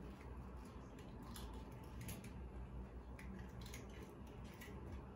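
Faint, scattered small clicks and taps from handling a freshly cracked egg and its shell over small glass bowls, over quiet room tone.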